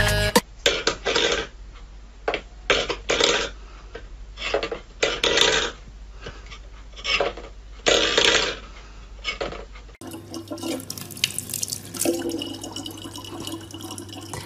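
Water splashing in irregular bursts. After a sudden change about ten seconds in, water runs more steadily.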